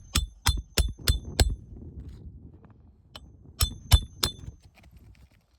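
Hammer striking a steel roof snake to drive shingle nails back in under the tabs: five quick ringing metallic blows about three a second, a pause, then three more about three and a half seconds in.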